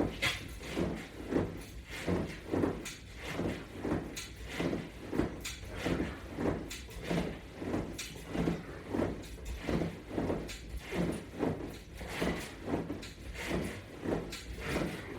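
Repeated sit-ups done with a resistance-band strap on a latch bar: a steady rhythm of short rubbing and clicking sounds, about one and a half a second, as the band and strap stretch and release with each rep.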